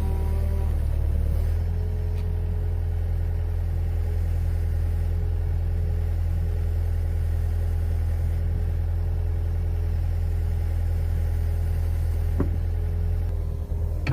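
Hitachi EX60 excavator's diesel engine running steadily at idle, its note shifting slightly about a second and a half in. A single short knock near the end.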